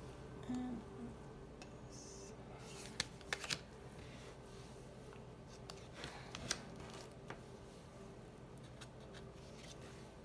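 Tarot cards being flipped through by hand and laid down on a table: quiet cardstock slides and taps, in small clusters, over a low steady hum.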